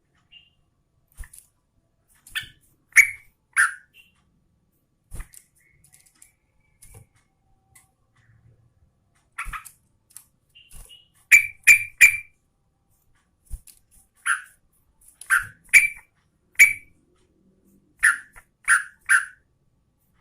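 Sooty-headed bulbul (trucukan) singing: short, sharp notes, mostly in quick clusters of two or three, with pauses between the clusters.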